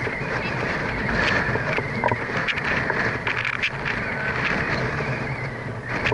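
Wind rumbling and buffeting on the microphone as a steady noise, with faint distant sounds of a football game in play.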